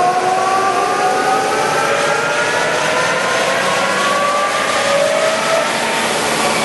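Lodge & Shipley engine lathe running with its spindle at top speed, 1740 RPM. Its headstock gives a steady mechanical whine that slowly rises in pitch.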